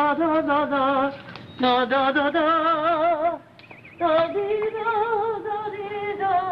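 A woman singing unaccompanied in three long held notes with a wide vibrato, each note higher than the last, with short breaks for breath between them.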